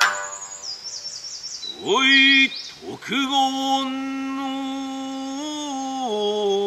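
One plectrum stroke on a Satsuma biwa, then the player's chanting voice in Satsuma biwa style: a rising slide about two seconds in, then a long held note that shifts pitch twice near the end. Birds chirp during the first two seconds.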